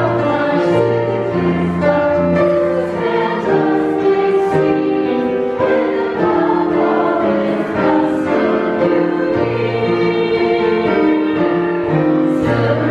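Small choir of carolers singing a Christmas song together, several voices holding chords that move from note to note without a break.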